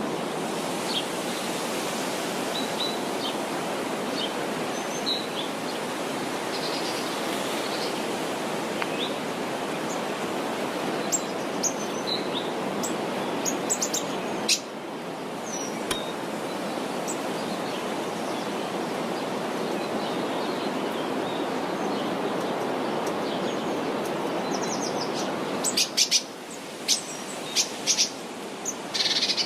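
Birds chirping in short, scattered calls over a steady background hiss, with more calls about halfway through and near the end.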